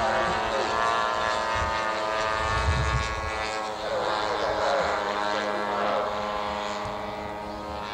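Piston engine of a radio-controlled scale warbird model running steadily in flight, a constant pitched drone.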